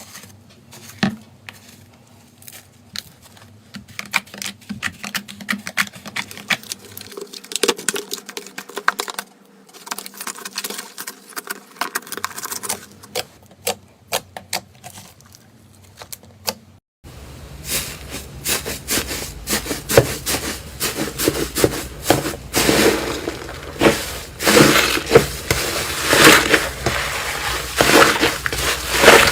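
Slime being squeezed and poked by hand, giving many small irregular clicks and crackles. About two-thirds of the way through it suddenly gets louder and denser.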